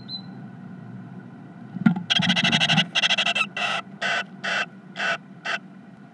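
Great tits in a nest box: a single knock, then a run of harsh, rasping calls, two longer ones followed by five short ones, as food is brought into the nest.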